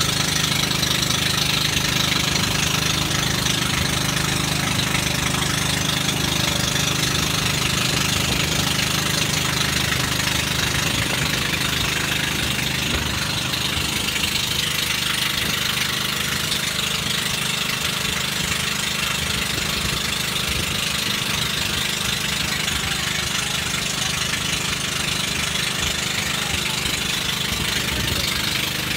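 Engine of an outrigger banca boat running steadily underway, a very loud noise.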